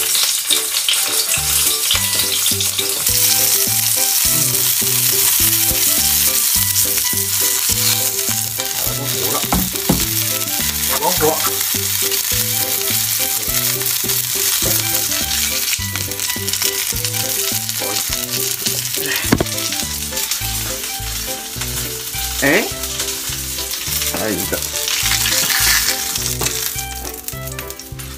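Sausages sizzling as they fry in oil in a nonstick frying pan, with the occasional scrape of a silicone spatula turning them. The sizzle eases a little past the middle and swells again near the end.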